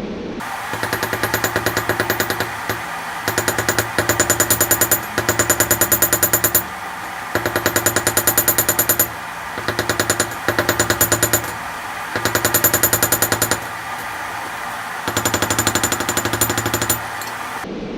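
Rapid hammering on steel, many blows a second, in about seven bursts of one to two seconds each, over a steady roar.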